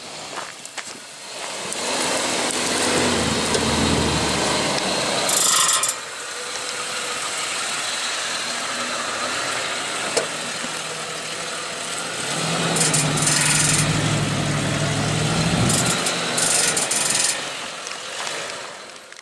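Jeep engine running under load with steady road and wind noise, revving up twice, once early and again about two-thirds of the way through, with brief bursts of hiss.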